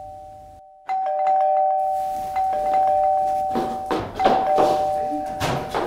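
Two-tone ding-dong doorbell chime ringing twice, about a second in and again about four seconds in, each high note followed by a lower one and fading slowly. Short knocks and clatter come in between the rings.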